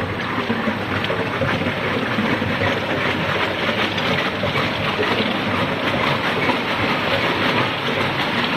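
Tube ice machine running: a steady mechanical noise with a dense, continuous clatter.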